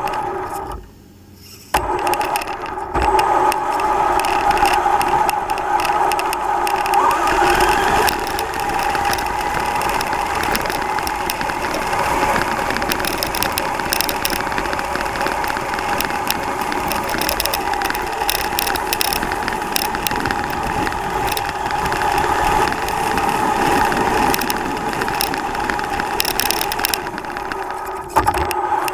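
Traxxas Slash Ultimate electric RC truck running, heard from a camera on board: a steady motor and gear whine with rattles and frequent clicks and knocks from the chassis. It starts up after a short quiet about two seconds in and dips briefly near the end.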